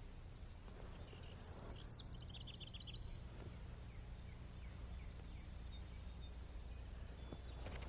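Faint low background hum, with a bird's short song about one and a half seconds in: a few quick falling chirps followed by a rapid trill.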